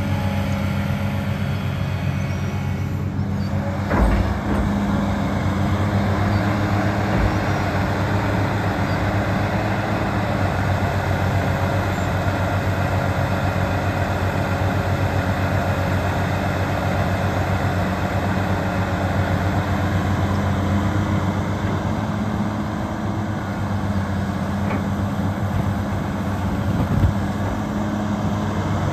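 Hitachi EX400LC-3 excavator's 305 hp Isuzu diesel engine running steadily under hydraulic load as the machine digs and swings, with a low, even engine drone. A sharp thump about four seconds in and a smaller knock near the end.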